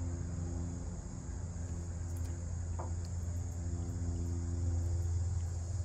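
Steady high-pitched chorus of crickets and other insects, over a low, steady mechanical hum.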